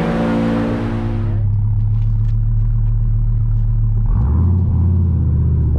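Dodge Viper GTS's 8.4-litre V10 idling with a low, steady rumble. A broad hiss cuts off about a second and a half in, and the engine note shifts briefly about four seconds in.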